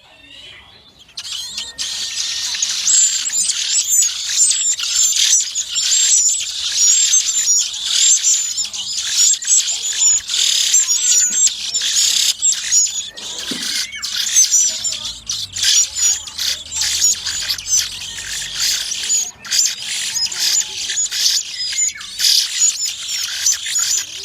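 Nestling birds chirping in a dense, shrill chorus as they beg to be fed. The chorus starts suddenly about a second in.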